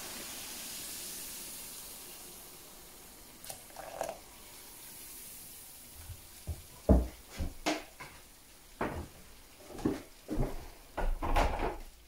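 Hot cleaning solution fizzing and hissing in a foil-lined pot, fading over the first few seconds. This is followed by a run of irregular knocks and short metallic clinks.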